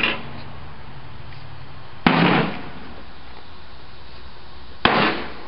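A big hammer striking the metal casing of an old microwave oven: two heavy blows about three seconds apart, each followed by a brief ring, as the top is smashed in.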